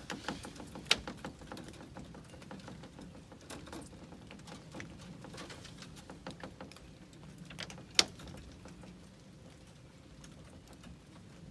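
Young rabbits' paws pattering and clicking on a wire mesh cage floor as they hop about, in scattered light taps, with a sharper knock about eight seconds in.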